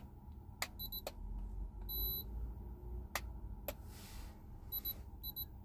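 Handheld digital thermometer clicking and beeping as it takes a temperature reading. A few sharp clicks come first, then one longer beep about two seconds in, and a run of short beeps about twice a second near the end.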